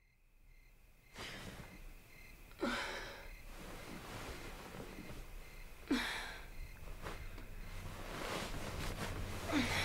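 A person in bed breathing hard in three sharp gasps, about three seconds apart, each falling in pitch. A low hum builds near the end.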